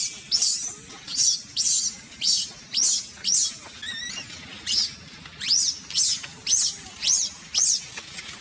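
Baby macaque screaming over and over, shrill high-pitched cries about two a second, some sliding in pitch: the distress cries of an infant that its mother is refusing to let nurse.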